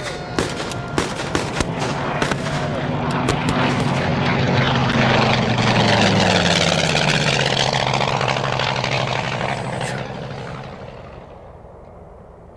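Battle sound effects: gunshots crack several times in the first few seconds. A propeller aircraft then flies over, its engine drone swelling to its loudest in the middle, dropping in pitch as it passes and fading away near the end.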